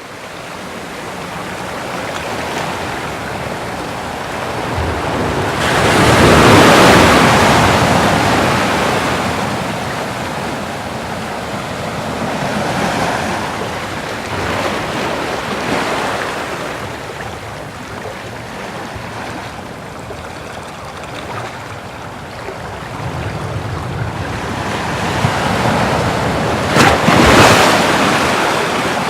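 Ocean waves breaking, a steady wash of surf that swells and ebbs. The biggest waves break about six seconds in and again near the end, with smaller ones in between.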